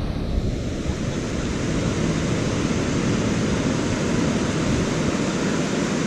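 Steady rush of wind buffeting the microphone together with surf breaking on the beach.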